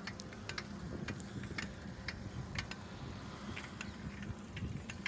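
Irregular light clicks and ticks, a few each second, over a low steady rumble.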